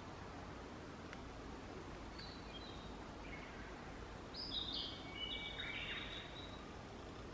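A songbird singing: a short phrase of high notes about two seconds in, then a longer, louder phrase of stepped notes around the middle, over a steady low background rumble.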